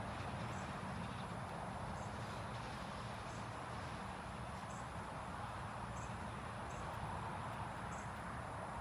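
Steady outdoor background noise with faint, short, high chirps about once a second.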